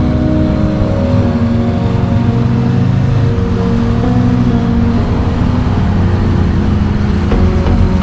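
A motorcycle's low engine and road rumble while riding, under background music of held notes that step from pitch to pitch every second or so.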